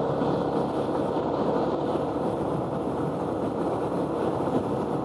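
Yamaha Exciter 150 motorcycle's single-cylinder engine running steadily at cruising speed, mixed with steady wind and road noise.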